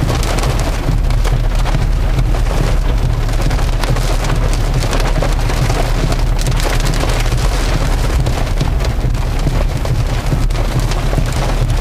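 Rain pattering on a car's glass and body, heard from inside the cabin over a steady low road and engine rumble.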